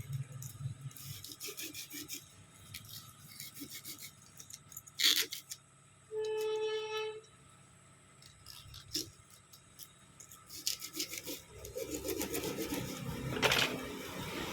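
Automotive wire being pushed through and wound onto a microwave oven transformer's core, rubbing and scraping against the metal with scattered clicks and one sharp click about five seconds in. A steady pitched tone sounds for about a second around six seconds in, and the scraping gets denser near the end.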